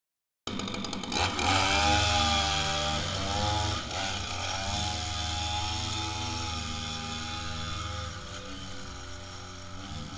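Two-stroke engine of a Husqvarna 535LS string trimmer running, its pitch wavering up and down slightly; it starts abruptly about half a second in.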